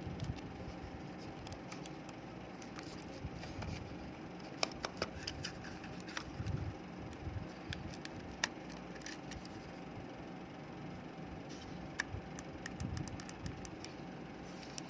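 Scattered small sharp clicks and taps of a computer mouse's plastic parts being handled, over a faint steady hum.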